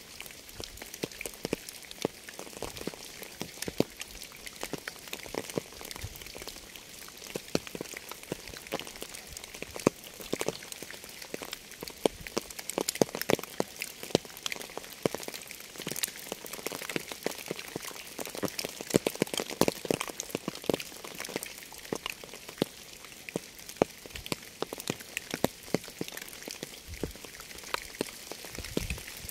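Rain falling steadily: a dense, uneven scatter of sharp individual drop strikes over a continuous high hiss.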